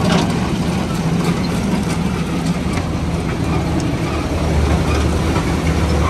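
Sterling LT8500 truck's Mercedes-Benz MBE900 diesel engine idling steadily.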